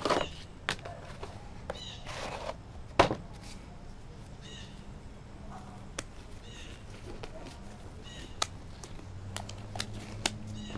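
Handling noise from a box of nitrile gloves and a glass tabletop: rustling, then a sharp knock about three seconds in as the box is set down on the glass, with lighter clicks as a glove is pulled on. Faint bird chirps and a low hum in the background.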